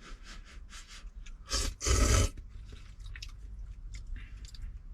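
A person eating at close range: chewing, with many small wet clicks, and a loud brief rushing noise about a second and a half in.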